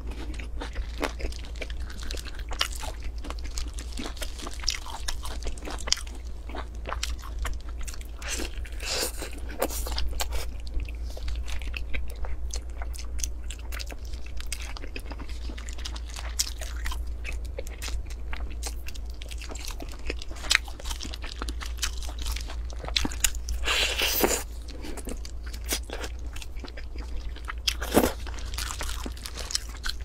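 Close-up eating sounds: bites, crunching and chewing of roasted meat wrapped in lettuce, as short crackles and clicks that come in clusters, loudest about 24 and 28 seconds in, over a steady low hum.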